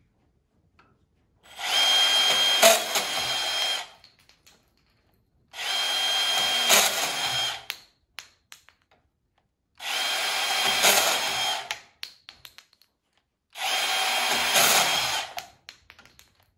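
Milwaukee M18 FUEL compact dual-trigger cordless bandsaw cutting through 3/4-inch CPVC pipe four times. Each cut lasts a couple of seconds with a steady high whine, and the saw stops between cuts.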